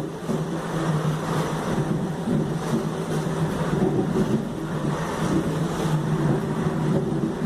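Traction motors of a CPTM Series 1700 (Mafersa/Hitachi) electric multiple unit running: a steady hum holding level in pitch, with a low tone and a higher one over rumbling running noise.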